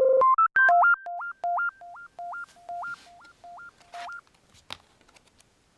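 Short electronic jingle of pure beeping synthesizer tones, a quick rising figure and then a repeated low-high two-note pattern that gets quieter and stops about four seconds in. A few faint clicks and rustles follow, with one sharper click just before the end.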